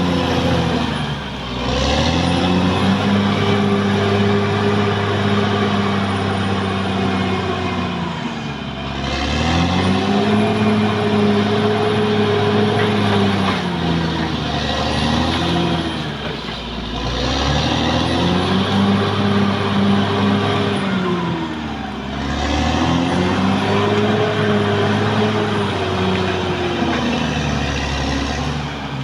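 Caterpillar D6R XL bulldozer's diesel engine working hard, its pitch falling off and climbing back about every six or seven seconds as it pushes and eases off.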